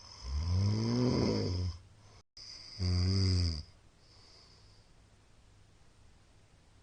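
A middle-aged man snoring in his sleep: two loud snores, the first about a second and a half long, the second about a second, each with a breathy hiss.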